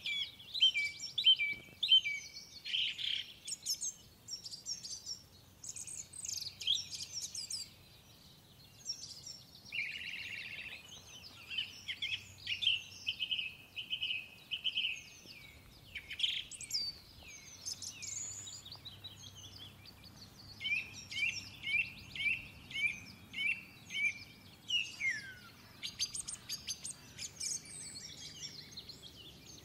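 Songbirds singing: a steady stream of high chirps, quick repeated-note phrases and short trills with hardly a pause.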